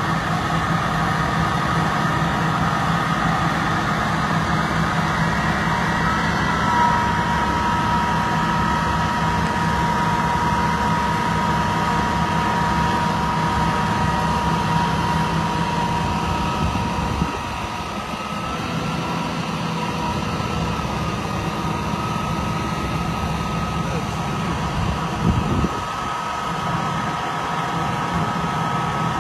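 Engine of a 1993 Seagrave aerial ladder fire truck running steadily while it powers the aerial ladder being raised, with a steady whine over the engine note. The sound drops a little about two-thirds of the way through, and a short thump comes near the end.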